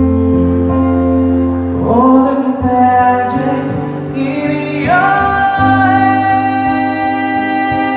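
Acoustic cover of a soft-rock ballad in a passage without lyrics: acoustic guitar with held melody notes, two of which slide up in pitch about two and five seconds in.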